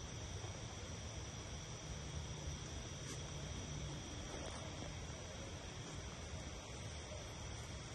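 A chorus of crickets and other insects chirring steadily, several high even tones held without a break, over a low rumble.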